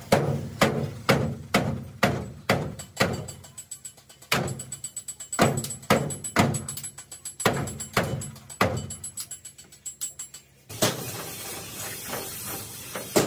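A steady run of sharp strikes, each with a short ring, about two a second; near the end they stop abruptly and a steady hiss takes over.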